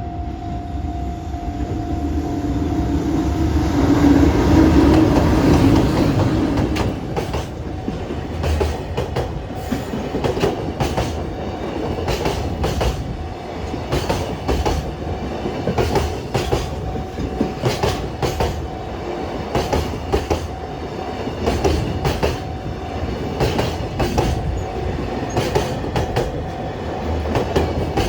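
EH500 electric locomotive passing close by, loudest about four to six seconds in, with the steady tone of its horn dying away in the first few seconds. Then the Koki container wagons roll past, their wheels clacking over the rail joints in a steady repeating rhythm.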